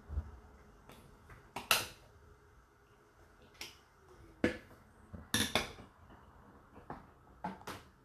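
Sharp plastic clicks and knocks, about seven spread unevenly, from a hand working the detergent dispenser in the open door of a Whirlpool WFO3P33DLXUK dishwasher.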